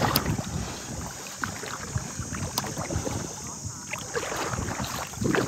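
Shallow water sloshing and splashing irregularly around people wading, with a low rumble of wind on the microphone and a couple of sharp clicks.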